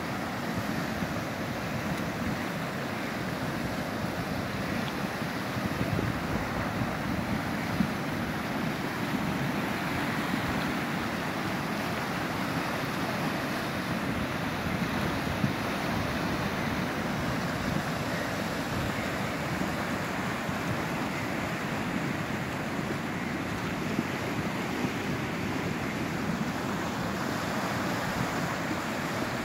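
Muddy floodwater rushing steadily over a low concrete weir and churning into foam below.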